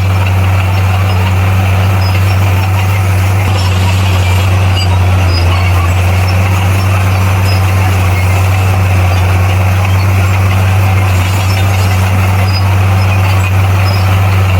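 Komatsu bulldozer's diesel engine running at a steady speed: a loud, even low drone that does not change.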